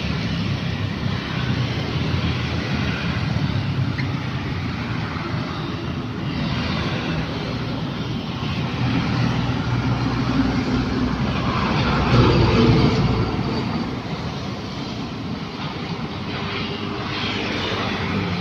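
Road traffic going by: motorbikes, cars and a heavy diesel truck, with the truck's engine passing loudest about two-thirds of the way through.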